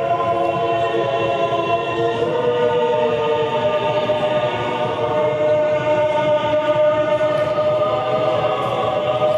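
Slow choral music: voices holding long, overlapping chords that change pitch slowly.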